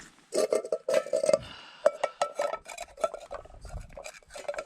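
A metal camping cook pot being picked up and handled, with repeated clanks and rattles and a ringing metallic tone after the knocks.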